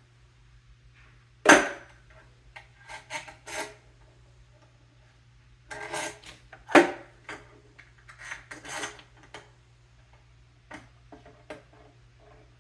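Step-stool parts being handled and fitted together during assembly: scattered clicks and rubbing, with two sharp knocks, one about one and a half seconds in and one near seven seconds.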